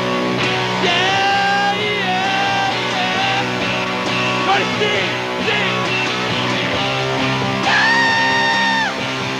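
Live rock band playing an instrumental passage: electric guitar chords under a lead line of held, bending notes, with one long high note near the end.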